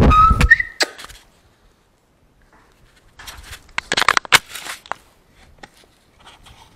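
Camera handling noise: a heavy thump as the camera is moved, then a cluster of clicks, rustling and scraping about three to five seconds in as it is set back in place, with a few faint clicks near the end.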